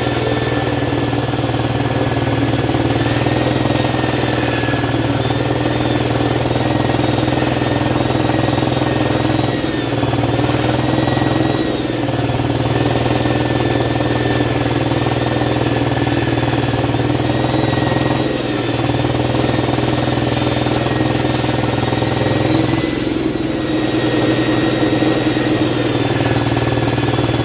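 A 16-inch circular saw machine running steadily with an even hum. The hum dips briefly about four times along the way.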